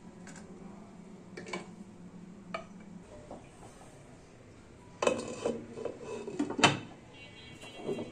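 A glass pot lid clattering and knocking against the rim of a frying pan as it is set on, with the sharpest knock near the end followed by a brief ring. Before it come a few light taps in the pan.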